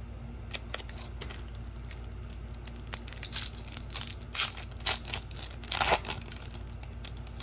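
Hockey trading cards and a foil pack wrapper being handled: rustling and crinkling, with a run of sharper crackles about halfway through, over a steady low hum.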